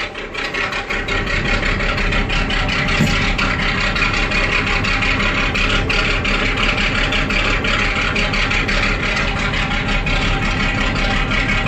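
MAN 22.190 truck's diesel engine idling steadily, cold and just started after months of standing.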